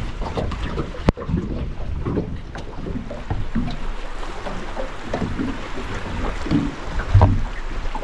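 Small wavelets lapping and slapping irregularly at the waterline, close to the microphone, with gusts of wind buffeting the microphone. There is a single sharp click about a second in.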